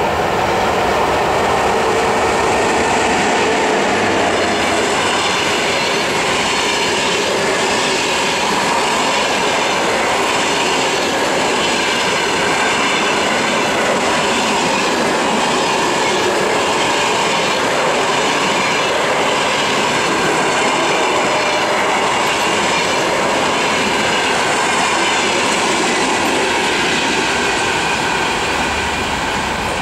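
A passenger train hauled by an EP1M electric locomotive passing at speed: a loud, steady rolling noise of wheels on rails as the locomotive and then the line of coaches go by. It is loudest a few seconds in and eases slightly near the end as the train draws away.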